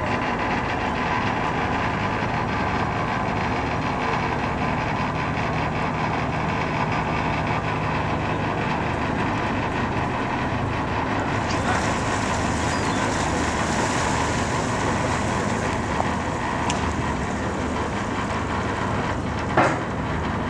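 Small fishing trawler's diesel engine running steadily at low revs, a constant mechanical drone. A single sharp knock comes near the end.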